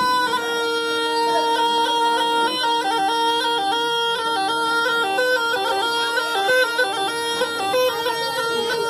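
Snake charmer's pungi (been), a gourd-bodied reed pipe, playing a stepping melody over a steady drone note; the drone drops out briefly about four seconds in.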